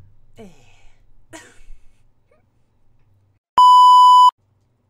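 A single loud electronic bleep: one steady tone held for under a second, starting about three and a half seconds in and cutting off sharply. It is an edited-in beep laid over a static-glitch transition.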